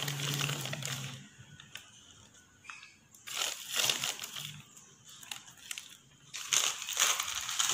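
Spoonfuls of cornflour tipped from a steel spoon into a stainless steel bowl: two bursts of scraping and rustling powder, with light clicks of the spoon against the metal.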